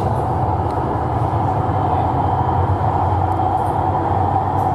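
Steady running noise heard from inside a moving vehicle: an even low rumble with a constant mid-pitched hum, no change in speed.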